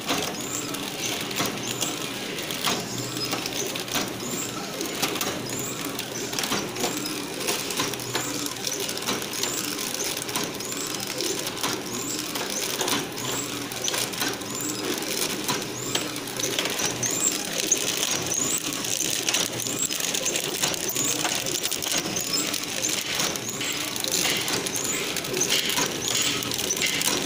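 Mini table-top flow wrap packing machine running continuously: a steady mechanical whirr with sharp clicks and short high squeaks that recur in a regular rhythm as it wraps and seals each pouch.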